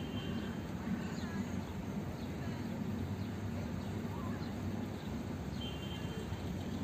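Steady city-park ambience: a low rumble of distant traffic with faint bird chirps, including a short high note near the start and again near the end.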